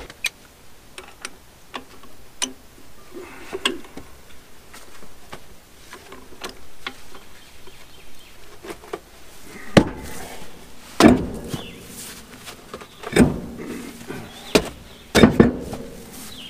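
Metal clicks and clanks of a lug wrench working the lug nuts on a trailer wheel, scattered sharp ticks at first, then several heavier knocks in the second half as the wheel and tire are handled.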